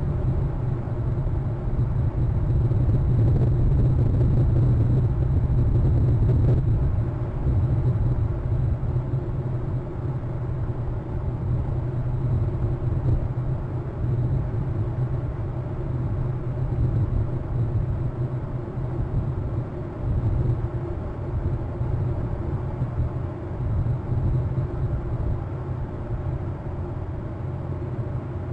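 Steady low rumble of outdoor background noise, with a faint high steady whine above it.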